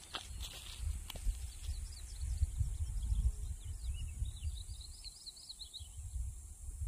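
Wind gusting on the microphone in a low, uneven rumble, with small birds chirping in quick runs of short notes, most of them between about three and five seconds in.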